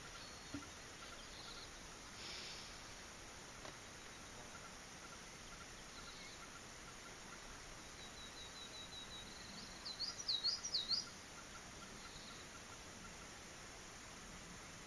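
Outdoor field ambience with a faint, even insect chirping. About ten seconds in, a songbird sings one phrase: a run of quick short notes that runs into several louder swooping notes.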